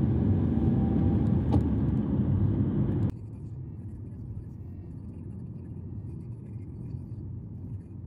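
Car driving on a road, heard from inside: a steady low rumble of engine and tyres. About three seconds in it drops abruptly to a much quieter rumble.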